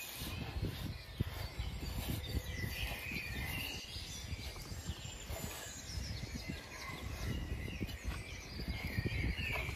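A hand squeezing and kneading a ground wheat mixture in a clay pot, a soft gritty rustle, over a steady low rumble. Birds chirp faintly in the background.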